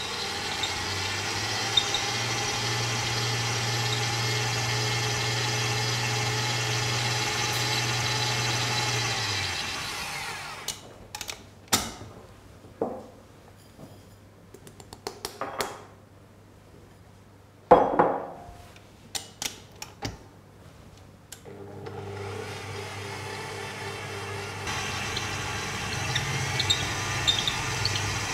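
Electric stand mixer running steadily as its beater creams butter in a glass bowl, winding down about nine seconds in. Scattered clinks and knocks follow, with one loud knock, as sugar is tipped into the bowl; the mixer starts up again about eight seconds before the end and runs steadily, creaming the butter and sugar.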